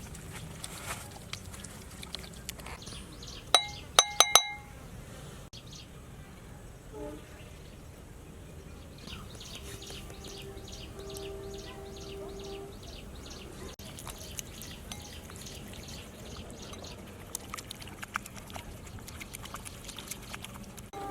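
Kitchen prep: liquid being poured and handled, with a quick run of loud, ringing clinks of glass or metal, a utensil against a vessel, about four seconds in.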